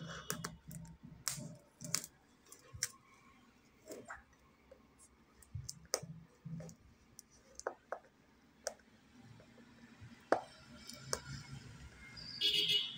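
A thin blade slitting and scraping the plastic shrink-wrap on a smartphone box: scattered sharp clicks, scratches and crinkles of the film, with a short louder rasp near the end.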